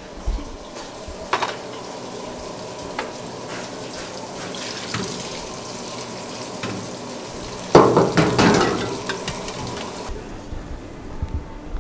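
Water running steadily into a cafeteria dish-return sink while a bowl and tray are handled, with a loud clatter of dishes about eight seconds in. The running water stops about ten seconds in.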